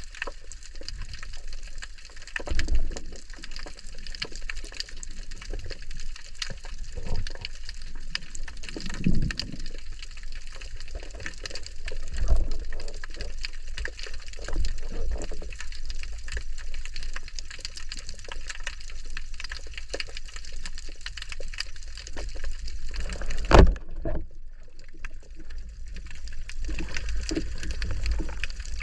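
Water sounds picked up by a camera at sea: a steady wash of water noise full of fine crackling clicks, with a few low thumps and one sharp knock about three-quarters of the way through.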